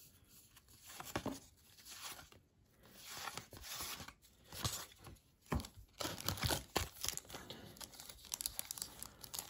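A card-pack wrapper being torn open and crinkled, along with trading cards sliding against each other as they are thumbed through: a string of short, faint rustles and crackles.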